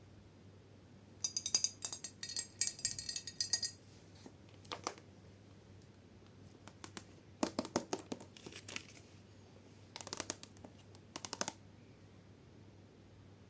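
Slime being handled in short bursts of crinkly, crackling sound. The longest and loudest burst lasts about two and a half seconds near the start, followed by a few shorter bursts further on.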